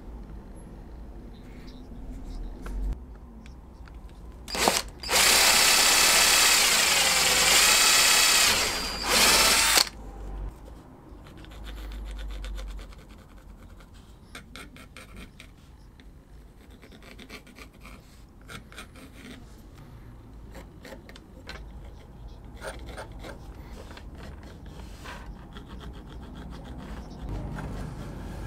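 An electric drill runs in bursts about five seconds in: a short one, a run of about three and a half seconds, then another short one. Afterwards comes the faint scratching and tapping of a pencil marking the Kydex sheet.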